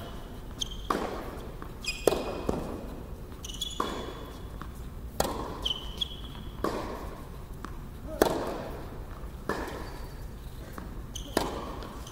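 Tennis rally on an indoor hard court: the ball's sharp pops off the rackets and its bounces on the court come about once every second or so, each echoing in a large hall. Short high sneaker squeaks follow several of the hits.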